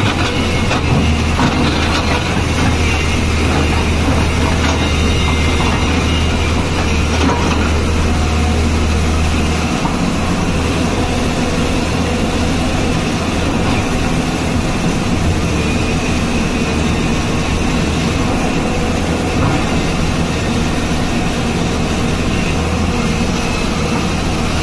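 Tata Hitachi crawler excavator's diesel engine running steadily under working load as the machine digs, swings and loads rock. A deep drone underneath it drops away about ten seconds in.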